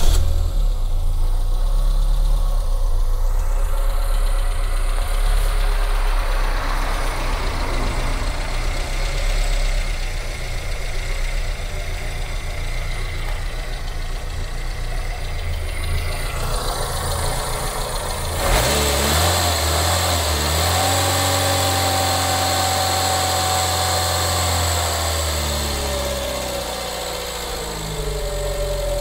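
Renault 9's 1397 cc carburettor engine idling steadily just after starting. About two-thirds through the sound shifts abruptly, and then a tone falls slowly as the revs settle; the owner finds the idle a lot better now that the missing carburettor spacer plate and crankcase breather hose are refitted.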